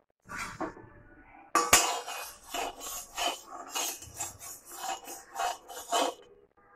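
A metal spoon knocking and scraping against an aluminium kadai while stirring in hot oil. There is one sharp loud clink about a second and a half in, then repeated strokes at about two a second that stop near the end.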